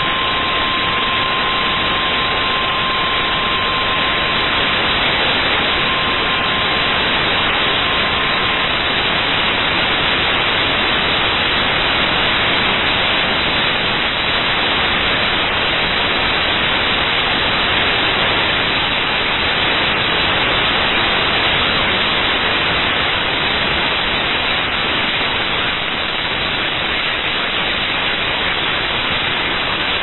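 Loud, steady static hiss on a NOAA Weather Radio broadcast, the sign of a poor, noisy signal. Through it, the weather radio warning alarm tone, a single steady beep near 1050 Hz, sounds for about the first nine seconds with a short dropout about five seconds in.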